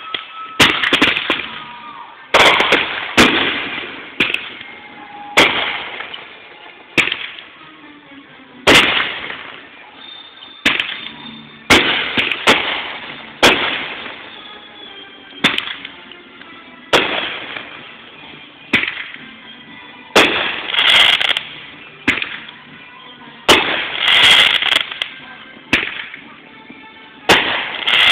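Aerial fireworks shells bursting in quick succession, more than twenty sharp bangs at about one a second, each fading away in an echoing tail before the next.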